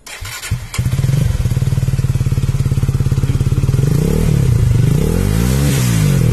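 Benelli TRK251's single-cylinder engine starting up with a few knocks in the first second, then idling steadily and evenly through its stock muffler.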